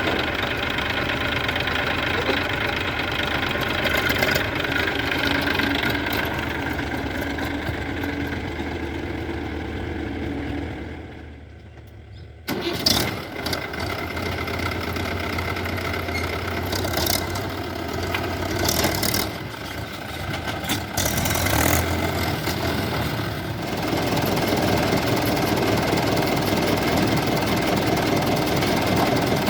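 Diesel engines of earth-moving machinery running steadily. The sound fades into a dip about ten to twelve seconds in, returns abruptly, and a few sharp knocks or clanks come through in the middle stretch.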